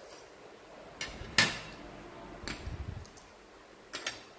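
Painted metal pieces being set down by hand on a sheet-metal cat-shaped clock panel: a few sharp metallic clacks, the loudest about a second and a half in, a short run of light knocking in the middle and a double knock near the end.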